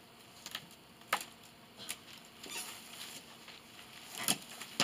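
Loppers cutting woody stems: a few short, sharp snips and snaps, the loudest about a second in and just after four seconds.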